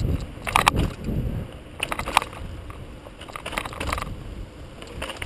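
Mountain bike rolling downhill on a paved path, heard close from a helmet camera: wind buffeting the microphone over tyre rumble, with several short rattles and clicks from the bike as it goes over bumps.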